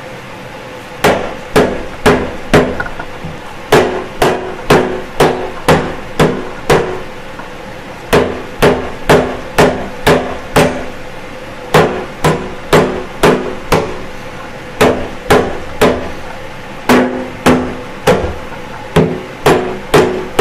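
Dead-blow mallet striking a cast bell housing to drive it onto stubborn locating studs at the back of a 1948 Chevrolet engine. The strikes come about two a second in runs of four to eight with short pauses, each with a brief low ring from the metal.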